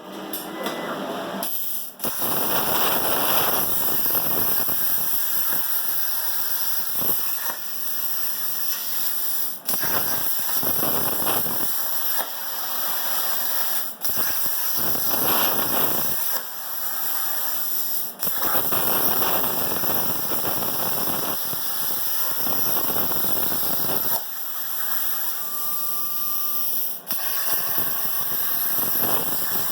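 CNC plasma torch cutting metal: a steady, loud hiss of the plasma arc, broken by a handful of brief gaps.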